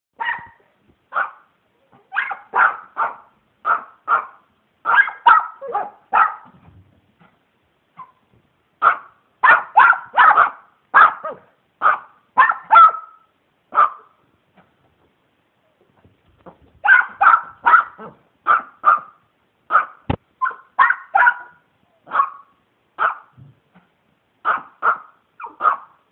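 Dogs barking at a squirrel in quick runs of short, sharp barks, with a couple of pauses of a few seconds between runs.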